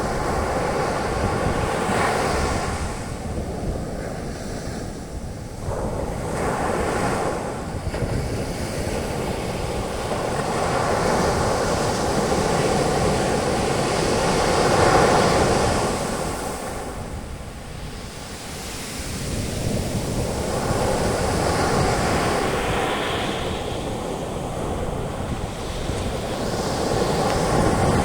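Ocean waves breaking and washing up a beach, the hiss of foam swelling and fading in slow surges; the wash is loudest about halfway, eases off briefly, then builds again.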